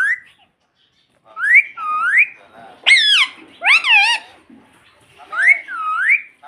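Indian ringneck parrot whistling a two-note rising whistle twice. Between the whistles come two loud calls that fall in pitch.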